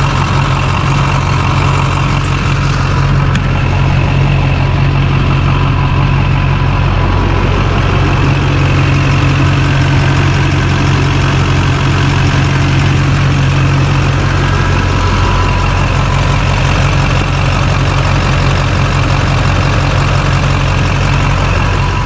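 LB7 Duramax 6.6-litre V8 turbodiesel idling steadily and evenly.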